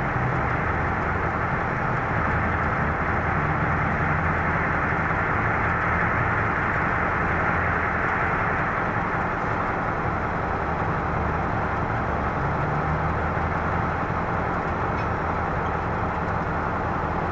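Heavy diesel engines running in a steady drone: off-highway haul trucks and a crawler bulldozer working the pit close by.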